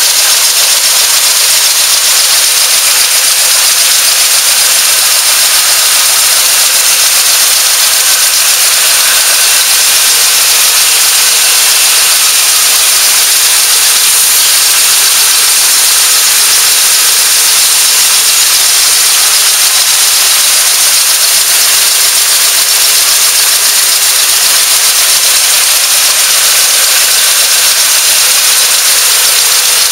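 BABY MK8 cigarette making machine running at speed: a loud, even hiss with a thin steady high tone above it.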